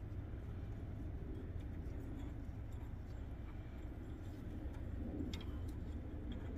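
A few faint metallic clicks from a ratcheting bit driver turning the camshaft retainer plate bolts on a Ford 5.0 engine block, over a steady low rumble.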